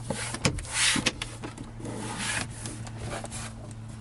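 A plastic dash trim panel being pressed and worked into place in a car's dashboard: several sharp clicks as its clips snap in, with the panel scraping against the surrounding trim.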